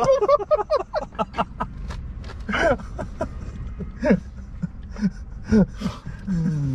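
Two men laughing: a quick run of laughter at first, then scattered short bursts of chuckling.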